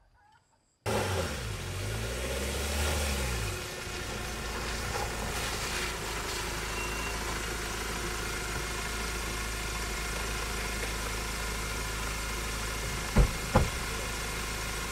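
A pickup truck's engine idling with a steady low hum, its pitch wavering for the first few seconds before settling. Near the end there are two sharp knocks from the truck's door.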